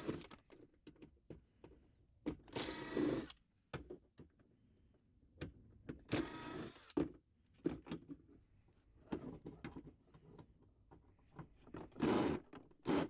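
Power screwdriver running in three short bursts of under a second each, backing the glove box's mounting screws out, with small clicks and handling noise between.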